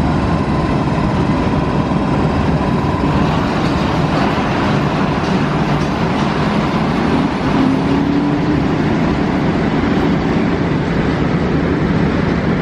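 SBB Re 4/4 II electric locomotive and its train of double-deck coaches running past along the platform: a loud, steady rumble of motors and wheels on rails, with a faint rising whine about halfway through.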